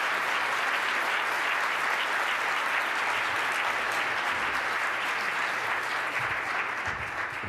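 A roomful of people applauding, steady clapping that begins to thin out near the end.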